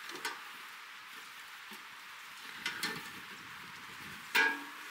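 Steel pipe-oven door being unlatched by hand: a few light metal clicks, then a sharper metallic clack near the end as the latch lets go and the door opens.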